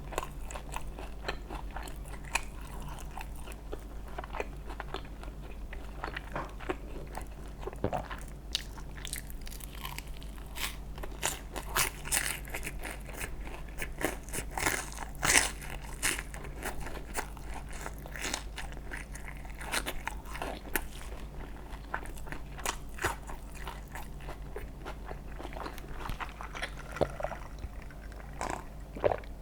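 Close-miked biting and chewing of crunchy fried food: dense crisp crackling crunches throughout, loudest about halfway through, over a steady low hum.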